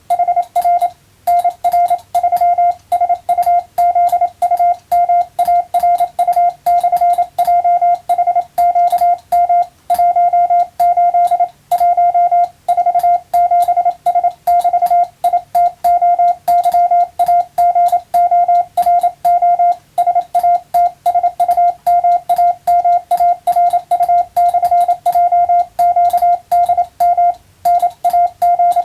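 Hand-keyed Morse code (CW) practice signal: a single steady tone of about 700 Hz switched on and off in quick dots and dashes. There are short pauses between characters and a few longer breaks, and a faint click at each keying edge.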